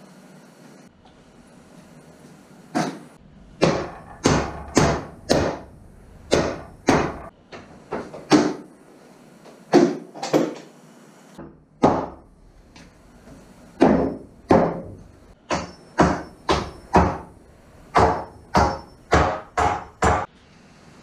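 A hammer striking the lumber of a wooden boatbuilding strongback, knocking the frame apart: about thirty sharp blows in uneven runs, starting about three seconds in.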